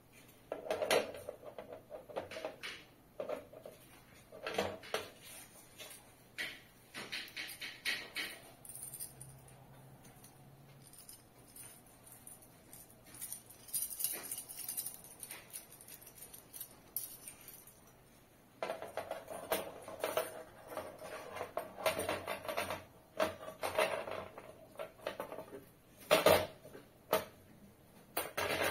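Metal mounting bracket and screws clinking and rattling against the plastic base of an LED ceiling lamp as it is put together by hand: irregular knocks and clatters, some with a short metallic ring, with a quieter stretch in the middle.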